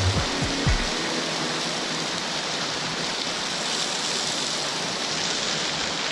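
Waterfall rushing steadily, a dense even hiss of falling water, with a few low thumps in the first second.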